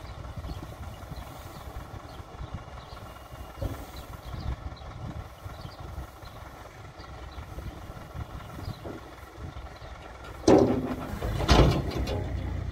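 Farm tractor engine running steadily at idle while the tipping trailer's body is lowered. Near the end, two loud sudden noises a second apart.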